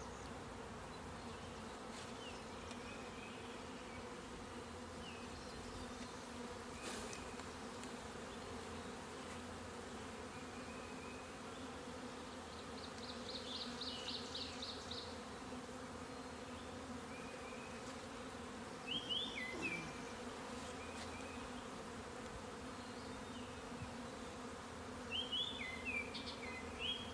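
Honey bees from a newly installed package swarming around an open hive, a steady low hum of wingbeats as they settle in and move toward the queen's scent. A few short high chirps break in about two-thirds of the way through and again near the end.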